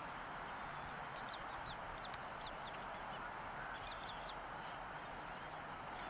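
Faint, quick high peeps from a newly hatched bald eaglet begging while an adult eagle offers it food, coming in small scattered clusters over a steady hiss.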